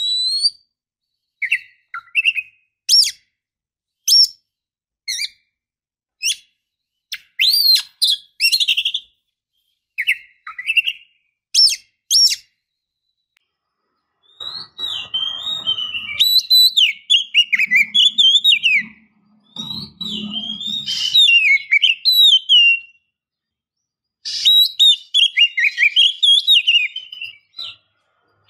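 Oriental magpie-robin (kacer) singing: first short separate whistled chirps about a second apart, then from about halfway a fast, varied run of warbling notes with a couple of short pauses.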